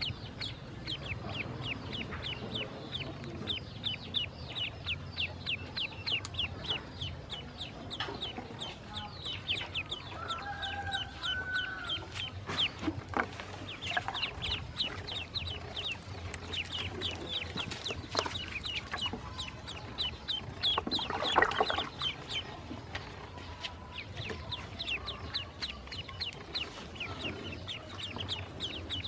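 Ducklings peeping continuously, many short high calls each second, with a brief louder sound about three-quarters of the way in.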